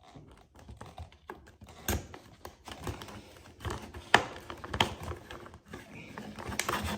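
Plastic clips on a Dyson V6 cyclone assembly being prised apart with a screwdriver: irregular plastic clicks and taps with some scraping, the sharpest clicks about two, four and five seconds in.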